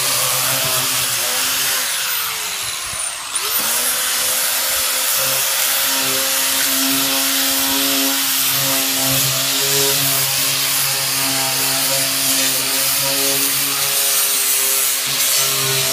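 Handheld electric power tool running under load as it sands back painted timber, a steady hum with a gritty abrasive hiss. About two to three seconds in, the motor winds down and then spins back up.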